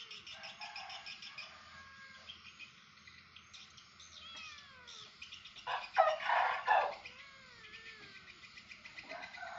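Domestic cat meowing several times, the loudest meows about six seconds in, as it begs at fish bait dangled above it.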